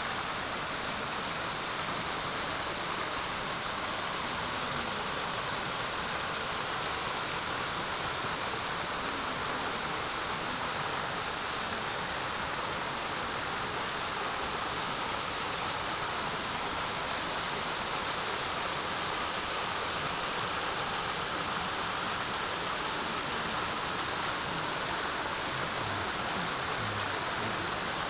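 Steady rushing splash of a thin waterfall pouring down a mossy rock face into a shallow pool.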